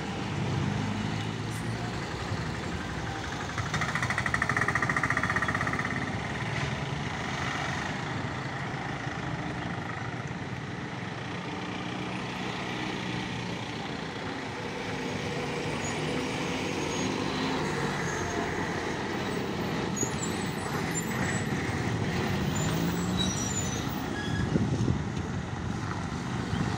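Mixed road traffic passing one vehicle after another on a hairpin bend: cars, a pickup truck and motorcycles, with the engines running continuously, and an SETC diesel bus passing close near the end. About four seconds in, a high steady tone sounds for about two seconds.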